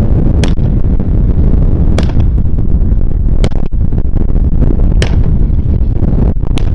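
Wind rumbling on the microphone, loud and steady, with sharp distant cracks about every second and a half.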